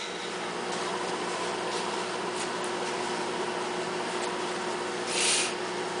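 Sharp Carousel microwave oven running: a steady hum with fan noise. A brief hiss about five seconds in.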